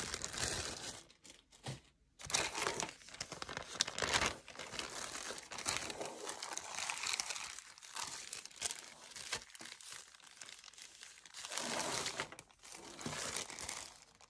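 Clear plastic zip-top bags crinkling and rustling on and off as they are handled, opened and folded.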